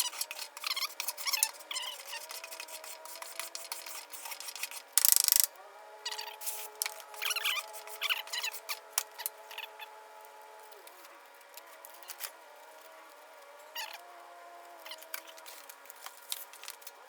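Hand block-sanding of hardened body filler on a bumper: irregular scratchy rasping strokes, busiest in the first half, with one brief louder rush about five seconds in, over a faint steady hum.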